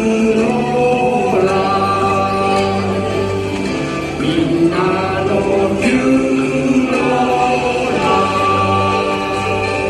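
A choir-style song with long held chords that change every second or two, the music of a theme-park chime show.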